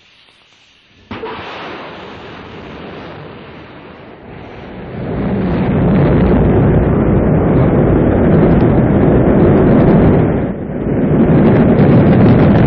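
Rocket launch roar. A sudden blast of ignition comes about a second in, then a deep, rumbling rush that swells much louder around five seconds in as the rocket lifts off, dipping briefly near the end.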